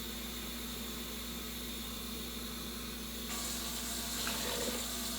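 Steady watery hiss over a low steady hum, getting brighter and a little louder about three seconds in.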